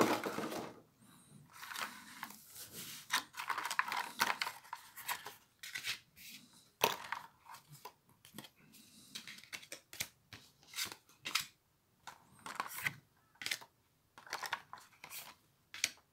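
Clear plastic packaging tray and trading cards being handled: irregular plastic rustles, crinkles and light clicks and taps as cards and booster packs are lifted out and set down on a table.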